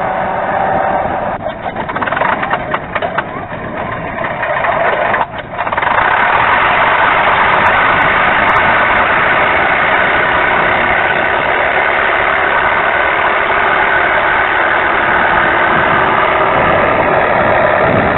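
Simulated piston aero-engine start-up played by an RC model's Mr RC V4.1 sound card through two TT25 transducers. For the first five seconds or so the engine sound turns over and fires unevenly. About six seconds in it catches and settles into a steady run, along with the spinning propeller.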